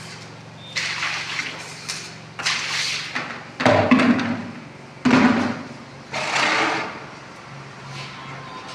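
Electric arc welding: about five short bursts of crackling hiss, each lasting under a second, with a steady low hum underneath.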